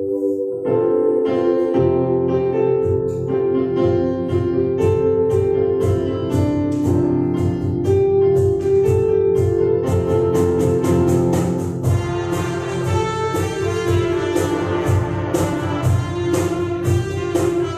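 Instrumental worship music led by keyboard chords, with a steady beat coming in about a second in.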